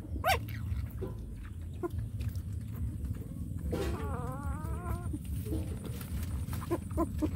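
A puppy whines once near the middle, a single wavering call about a second long, over a steady low rumble with a few short clicks.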